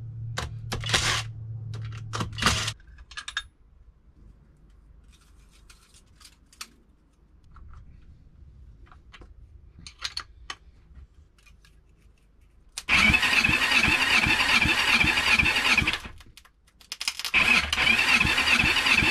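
Kawasaki Z750 engine on a bench being spun over by its electric starter in two bursts of about three seconds each, a fast even chugging, for a compression test. The tested cylinder reads basically nothing on the gauge. A cordless driver whirs briefly at the start.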